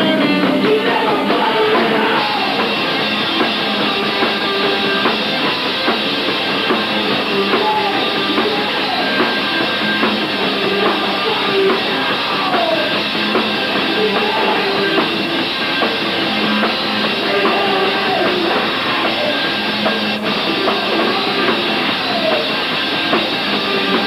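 Punk rock band playing live: electric guitars and a drum kit. The sound is loud and dense, with a thin low end.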